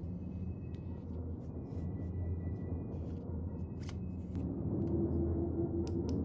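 Scattered light clicks and small scrapes of metal as the sections of a Korbanth LS6 lightsaber hilt are handled, twisted and slid apart, over a steady low hum.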